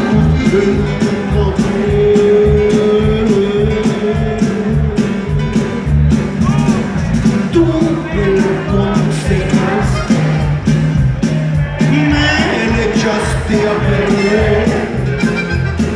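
Norteño band playing live: button accordion over electric bass, drums and guitar, with a man singing lead.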